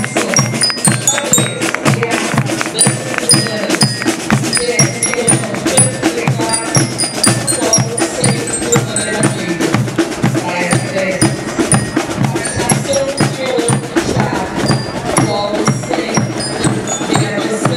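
Marching band of bass drums and bell lyres playing: a steady drumbeat under short, high, ringing bell-lyre notes.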